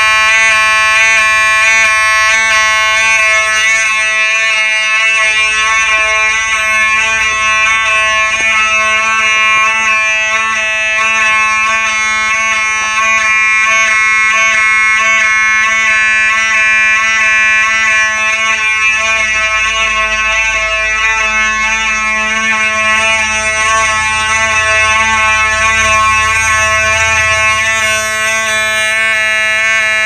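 Simplex 2903 fire alarm horn sounding continuously: a loud, steady horn tone with many overtones that does not change pitch.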